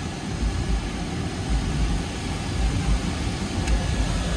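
Car engine idling: a steady low rumble.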